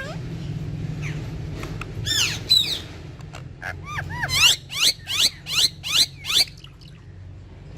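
Ringneck parakeets calling: a few arching chirps about two seconds in, then a quick run of six sharp, evenly spaced calls, over a steady low hum.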